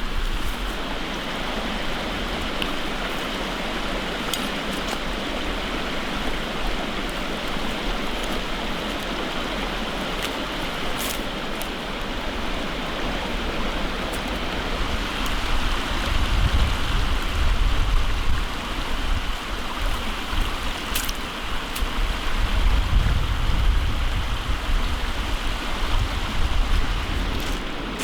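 Running water from a stream, a steady rushing flow with a few faint clicks, and a heavier low rumble in the second half.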